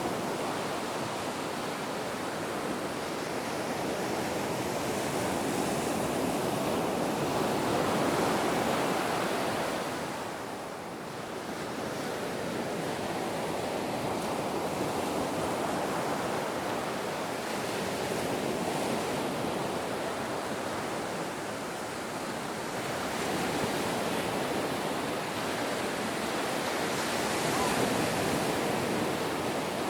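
Ocean waves: steady surf noise that swells and eases slowly, loudest about 8 seconds in and near the end, with a brief lull around 11 seconds.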